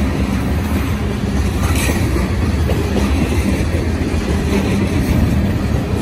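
Freight train cars (tank cars, a gondola and autoracks) rolling past close by: a steady, unbroken rumble and clatter of steel wheels on the rails.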